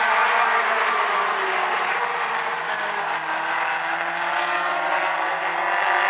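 A pack of four-cylinder mini stock race cars running at speed, several engine notes overlapping and slowly shifting in pitch as the cars go by, a little quieter midway and building again near the end.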